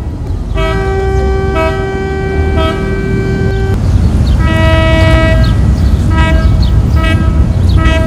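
NY Waterway ferry horns sounding: one long blast of about three seconds with shorter toots from a second horn over it, then another blast and several short toots, over a low rumble. These are the horn signals the ferries give on departing the terminal.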